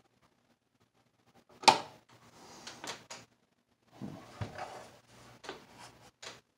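Hands working inside an opened rack unit's sheet-metal chassis: one sharp click about a second and a half in, then scraping, rustling and a few light knocks as parts are handled.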